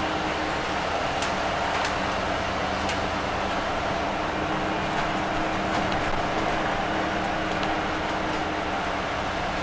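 Iveco Urbanway 12M city bus heard from inside its passenger cabin while driving: a steady engine hum and road noise, with a few light clicks.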